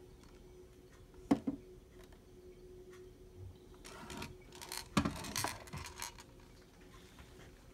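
Clicks and rattles from handling an S&T G316C airsoft rifle. A sharp click and a softer one come just over a second in, then a burst of clicks and clatter between about four and six seconds in, loudest around five seconds, over a faint steady hum.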